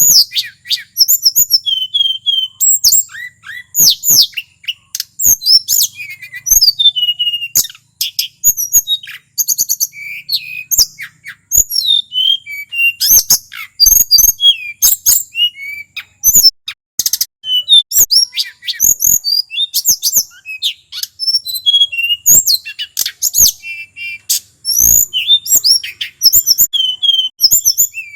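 Male hill blue flycatcher (tledekan gunung) singing a fast, varied run of high, sharp slurred notes and rapid trills, with only brief gaps.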